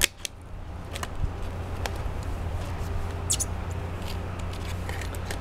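Light clicks and crinkles of a clear plastic water-jug camera cage being handled, over a steady low rumble, with one brief high squeak about three seconds in.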